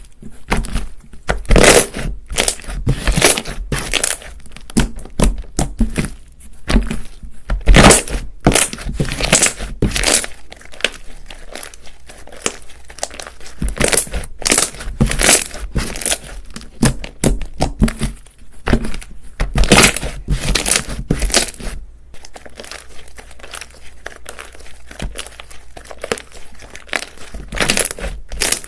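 Slime being squished, pressed and stretched by hand, giving dense, irregular sticky crackles and popping air pockets, with louder bursts of pops every few seconds.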